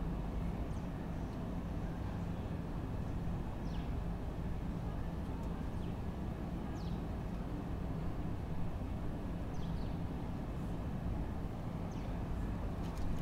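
Residential street ambience: a steady low rumble of distant traffic, with a bird giving short, faint falling whistles every few seconds.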